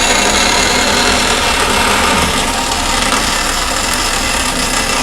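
Vertical bandsaw cutting a rough circle out of a piece of Delrin plastic: a loud, steady sawing noise.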